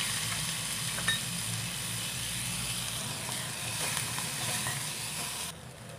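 Crumbled paneer mixture frying in a little oil in a metal kadhai: a steady sizzle while a spoon stirs it. The sizzle cuts off suddenly near the end.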